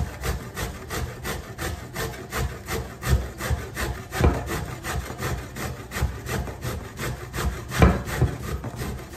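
Peeled raw cassava root grated on a stainless steel box grater: a steady run of scraping strokes, about four a second, with two louder strokes near the middle and towards the end.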